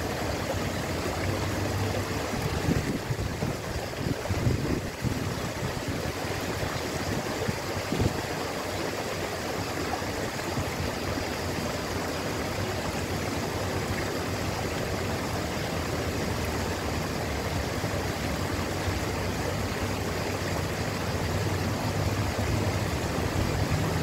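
Small waterfall splashing steadily down a rock cascade, with a few low thumps a few seconds in.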